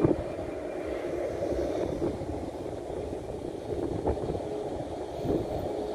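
Distant, steady jet engine rumble from a Boeing 737 MAX 8's CFM LEAP-1B engines at taxi power, with wind gusting on the microphone.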